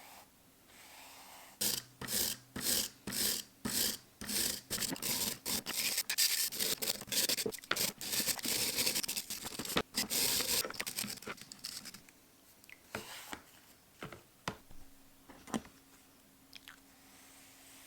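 Repeated hand scraping strokes, about two a second at first, then quicker and almost continuous, stopping about twelve seconds in; a few light clicks and taps follow.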